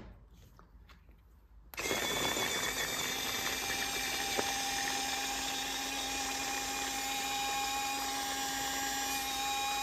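Cordless electric mini chopper's small battery motor starts about two seconds in and runs with a steady whine, its blades mincing garlic cloves in a glass jar. Pretty quiet for a chopper.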